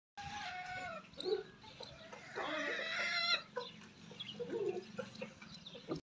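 Chickens calling: short clucking calls in the first second, then a louder, pulsing call of about a second starting two and a half seconds in, and scattered smaller clucks after it.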